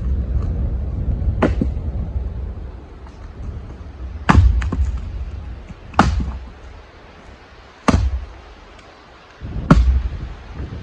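Firewood being handled: about six sharp, heavy knocks a second or two apart, the loudest with a short ringing tail, over wind rumbling on the microphone.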